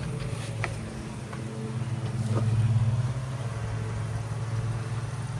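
Electric water pump motor running with a steady hum as the newly plumbed system and pressure tank fill, swelling louder for about a second near the middle.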